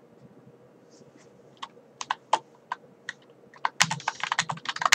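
Typing on a computer keyboard to send a chat message: a few scattered key presses, then a fast run of keystrokes from about four seconds in.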